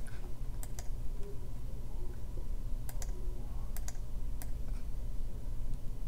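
A few scattered sharp clicks at a computer, from its mouse and keyboard, some coming in quick pairs, over a low steady hum.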